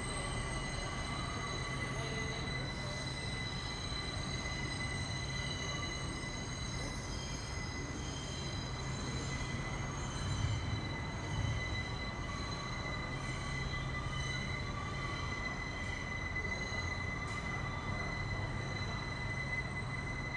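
New York subway train's electrical equipment giving a steady low hum with a high, unchanging whine.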